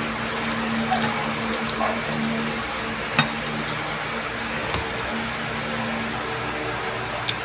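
A serving spoon scooping noodles from a plastic container, with a few sharp clicks of utensils against the bowls, the loudest about three seconds in. A steady low hum runs underneath.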